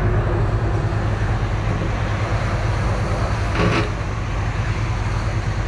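John Deere excavator's diesel engine running steadily, heard from inside the open cab.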